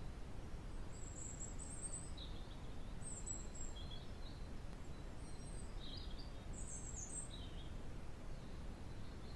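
Steady low background rumble with a few faint, short high bird chirps scattered through it.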